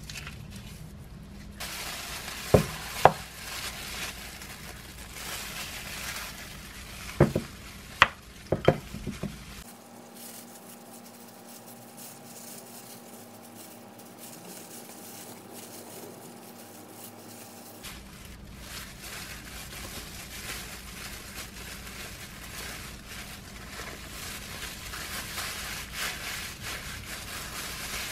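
Gimbap being made by hand on a wooden cutting board: crackly rustling of plastic food-prep gloves and laver sheets, and a spatula scraping rice across the seaweed. Several sharp taps and knocks stand out, a pair about two and a half seconds in and a cluster around seven to nine seconds. A quieter stretch in the middle carries only a faint steady hum.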